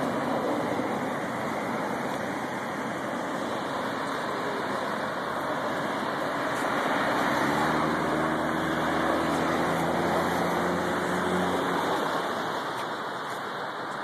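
Street traffic noise, a steady rushing hiss. In the second half a vehicle engine runs at a steady pitch for about four seconds, then fades.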